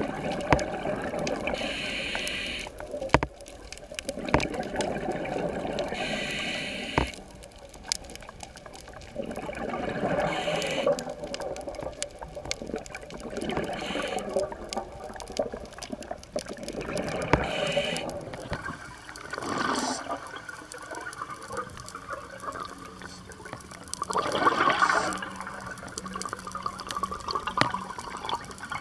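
Scuba diver's regulator breathing underwater: exhaled bubbles gurgle in swells every few seconds, some with a short higher hiss, and a few sharp clicks come in between.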